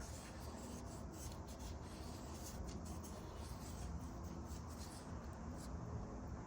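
Faint rubbing and light scratching of a fingertip working fresh engine oil around the rubber gasket of a new spin-on oil filter, over a low steady background hum.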